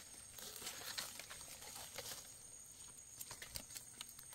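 Faint, scattered small ticks and rustles of dry leaf litter and soil as hands dig up and pick small mushroom buttons from the forest floor.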